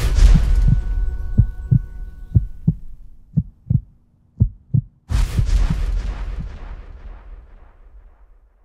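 Cinematic logo sting: a loud impact over a held chord that dies away within a few seconds, then deep thumps in pairs. About five seconds in a second big impact hits and rings out, fading away near the end.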